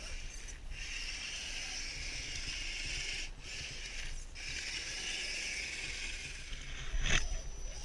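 Scale RC rock crawler's electric motor and geared drivetrain whining steadily as it creeps over rocks. The whine cuts out briefly about three times and fades out shortly before the end, when a single sharp knock comes.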